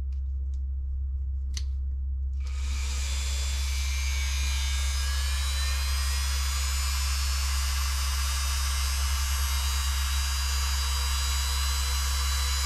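Dremel 3000 rotary tool switched on: two clicks of its switch, then about two and a half seconds in the motor starts and runs with a steady high-pitched whir over a low hum, slowly getting louder. It is speeding up on its own at a low setting, a speed-control fault of this tool.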